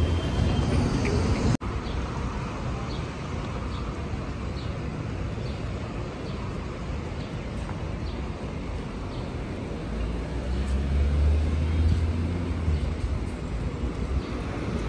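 City street ambience: road traffic running past, with a heavier vehicle's low rumble swelling and passing about ten seconds in.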